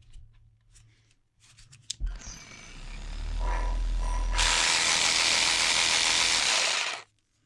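Parkside 12 V cordless jigsaw (PSTKA 12 A1) running after its blade has been refitted. It starts a couple of seconds in and builds steadily in speed. About halfway through it turns much louder with a strong hiss, then cuts off sharply near the end.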